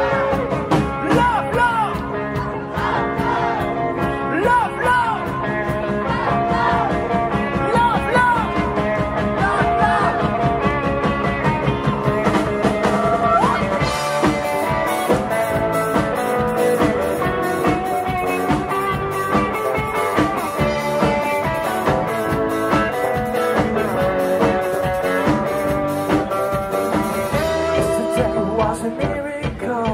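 Live pop-rock band playing an instrumental passage: a lead line with sliding, bending notes over bass and drums. About halfway through, the drums switch to a busier, steady beat.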